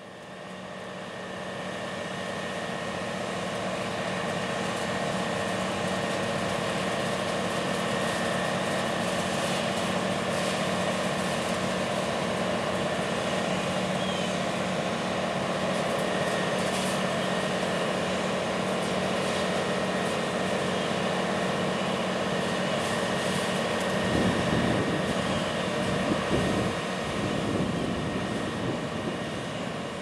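CLAAS Lexion 7500 Terra-Trac combine running, a steady drone of engine and machinery with a constant whine over it. It swells in over the first few seconds, and a louder low rumble comes in for a few seconds near the end.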